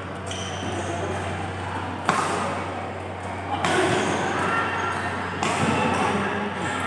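Badminton rackets striking a shuttlecock in a rally: three sharp hits roughly a second and a half apart, over a steady low hum.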